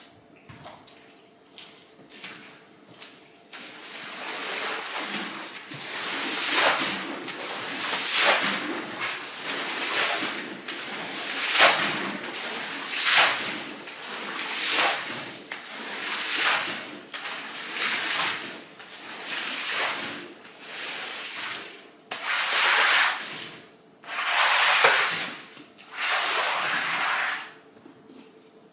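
Water swished and pushed across a soaked carpet in repeated strokes, about one every second and a half, ending with three longer strokes.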